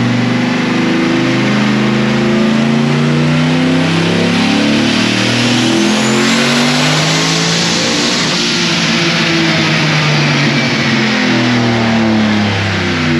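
Turbocharged 4.8-litre V8 in a 2005 Chevrolet Silverado making a full-throttle pull on a chassis dyno with more ignition timing added. Its pitch climbs for about six or seven seconds, then falls away as the engine comes off the throttle and winds down.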